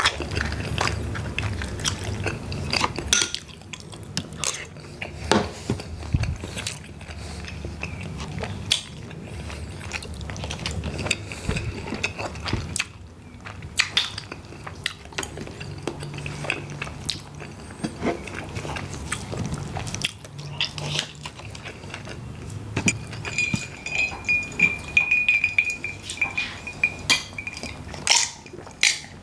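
Close-up eating sounds of cooked mud crab and tiger prawns picked apart by hand: shell cracking and clicking, with chewing. There are clinks of dishes, and a glass is set down near the end.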